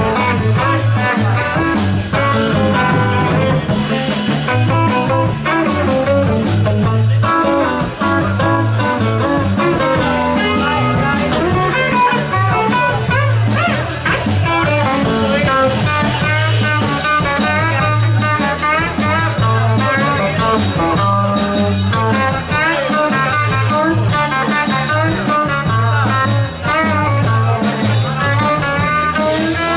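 Live blues band playing an instrumental passage without singing: electric guitar lines with bent notes over a steady electric bass line and drum kit.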